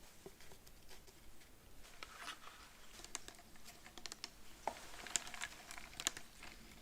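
Close-miked eating sounds from a burger-and-fries meal: a quiet start, then from about two seconds in, scattered sharp, crisp clicks and crackles.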